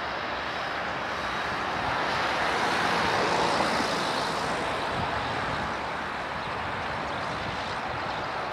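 Boeing 737-500 on final approach with gear down, its CFM56 turbofans giving a steady jet roar that swells a little a few seconds in and then eases back.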